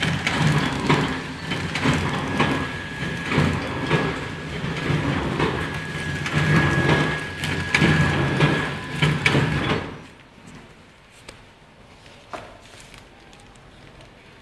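Automatic wet wipes packing machine running, with a busy repeated clatter of its mechanisms and a steady high whine. The sound cuts off sharply about ten seconds in, leaving a faint hum and a few light clicks.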